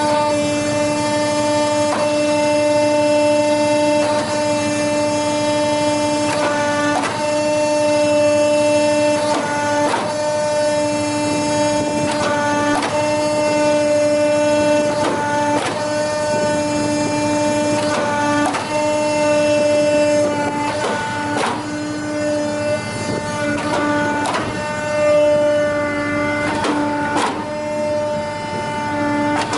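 Hydraulic sawdust briquetting press running after switch-on: its electric motor and hydraulic pump give a loud, steady hum with a whine above it. Every two to three seconds the note briefly changes as the press cycles through its strokes.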